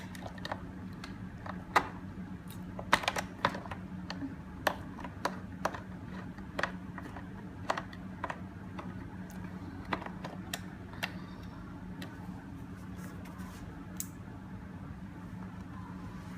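Scattered sharp clicks and taps of a screwdriver and small screws on a smart door lock's back panel, irregular and thinning out toward the end, over a steady low hum.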